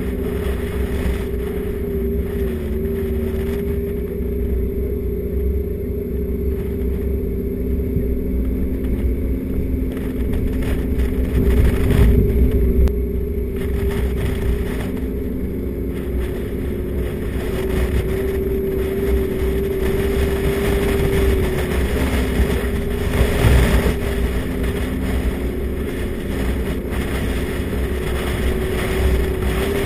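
Vehicle driving along a sandy dirt track: a steady engine hum over the low rumble of tyres and body on the rough surface, with louder jolts about twelve seconds in and again near twenty-three seconds.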